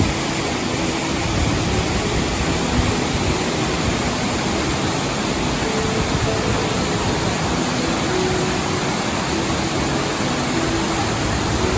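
Steady, loud rushing of a waterfall, even and unbroken, with faint soft music notes under it.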